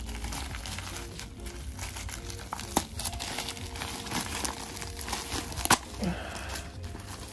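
Plastic packaging crinkling and rustling with irregular sharp crackles as a plastic courier mailer and its inner wrapping are unwrapped by hand.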